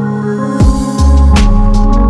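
Electronic background music: held synth chords build with a rising noise sweep, then a beat drops about a second in, with heavy bass and sharp drum hits.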